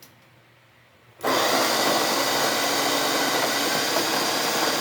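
Electric coffee grinder switched on about a second in, its motor running steadily as it grinds coffee beans.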